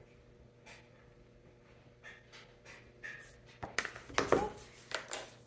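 Makeup items being handled: a few faint taps, then about three and a half seconds in a burst of louder clicks and knocks as the brush is put down and the next product picked up.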